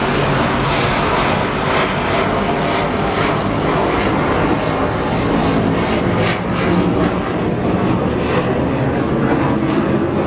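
Military jet aircraft flying over, a loud steady engine noise.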